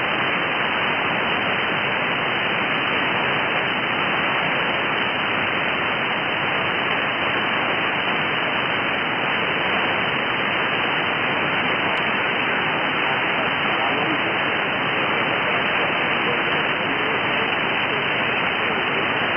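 Steady shortwave static from a software-defined radio receiver in upper-sideband mode, with no clear signal on the channel. Underneath is a faint, steady high whine.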